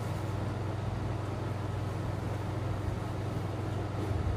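Steady low hum of a room air conditioner running.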